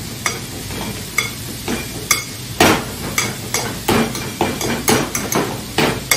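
Potato masher mashing avocado in a glass bowl: a series of knocks about two a second, coming a little faster near the end, over a steady sizzle of onions and sweet peppers frying in a pan.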